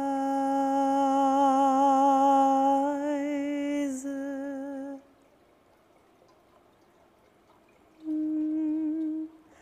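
A solo voice sings slow, long held notes with vibrato. The first note lasts about five seconds and shifts slightly in pitch partway through. After a pause of about three seconds, a shorter held note follows.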